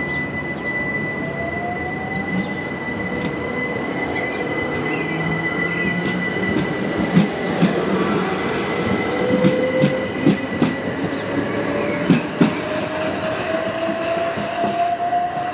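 Class 377 Electrostar electric multiple unit pulling away, its traction motors whining and rising slowly in pitch as it gathers speed, over a steady high-pitched whine. A run of sharp clicks from the wheels passing over rail joints comes in the middle.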